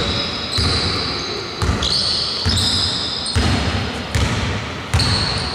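A basketball being dribbled on a wooden gym floor, bouncing about once a second, with short high squeaks in between.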